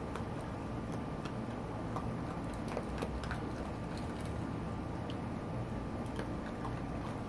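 Raccoon kits eating dry kibble from a plate: irregular small crunches and clicks as the pieces are chewed and pawed against the plate, over a steady low hum.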